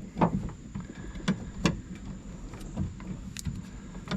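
A handful of sharp clicks and light knocks, irregularly spaced, as door-latch parts and linkage-rod clips are handled and fitted inside a pickup truck's door.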